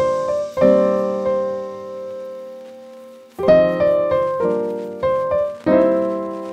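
Background piano music: a few slow chords, each struck and left to ring out.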